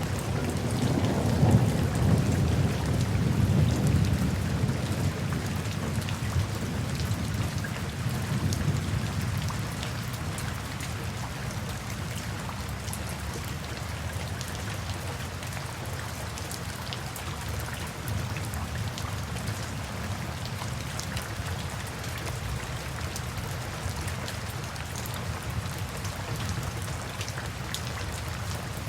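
Steady rain pattering on a surface, with a low rumble of distant thunder that is loudest in the first few seconds and slowly dies away.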